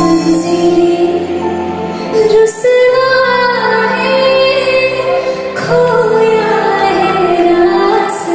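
A woman singing a Hindi ballad live into a microphone, with long held notes over sustained band accompaniment and short breaks between phrases.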